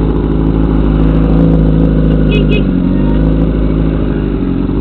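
Motorcycle engines running at riding speed in traffic over a steady rushing noise; the engine note dips and shifts about three seconds in. Two short high beeps sound about halfway through.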